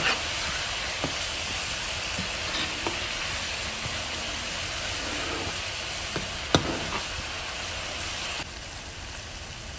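Tomato chutney sizzling in a frying pan while a spoon stirs it, with a few light clicks of the spoon against the pan, the sharpest about six and a half seconds in. The sizzle drops quieter near the end.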